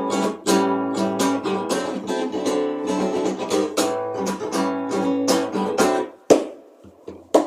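Acoustic guitar strummed in a quick, steady rhythm of chords, about three strokes a second, as an instrumental break in a song. About six seconds in it stops on a single strum left to ring out, and a short knock follows near the end.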